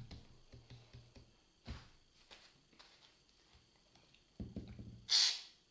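Soft knocks and handling of containers on a table, with a short loud hiss a second or so before the end.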